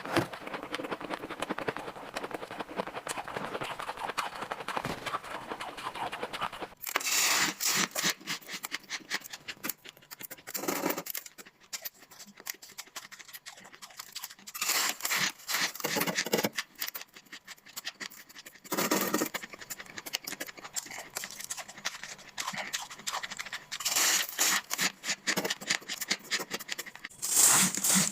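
Close-miked crunching of shaved ice being bitten and chewed. A dense, continuous crackly crunch runs for about the first seven seconds, then comes in separate bursts of rapid crunches with short pauses between.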